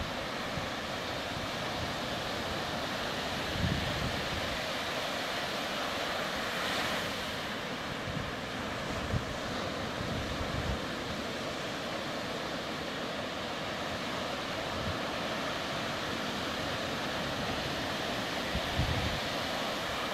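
Ocean surf breaking and washing up a sandy beach, a steady rushing noise. Wind buffets the microphone in short low gusts, about 4 seconds in, again around 9 to 11 seconds, and near the end.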